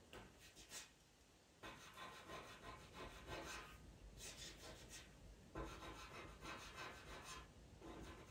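Faint scratching of a pastel pencil drawn across pastel mat paper in short, repeated strokes. There is a brief pause about a second in.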